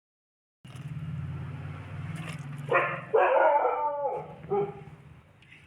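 A dog barking: a few pitched calls, the loudest lasting about a second near the middle, over a steady low hum that stops partway through.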